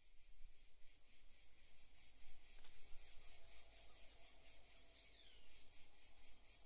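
Insects chirring steadily in a high, evenly pulsing trill, over a low rumble, with a faint falling whistle about five seconds in.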